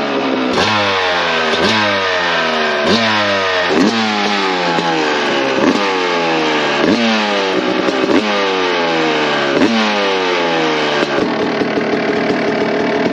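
A freshly rebuilt 2007 Suzuki RM250's single-cylinder two-stroke engine is blipped about ten times, its revs jumping up and falling back each time through an aftermarket expansion chamber and FMF muffler. It settles to a steady idle near the end.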